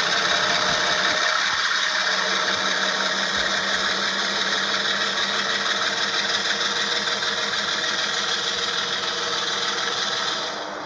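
HO-scale model of a CSX ES40DC diesel locomotive running along the track, with a steady diesel engine sound. The sound drops in level near the end.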